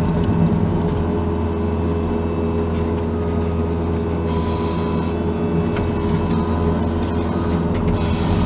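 Case TV450 compact track loader's diesel engine running steadily under work, a constant drone, with a higher hiss coming and going about halfway through.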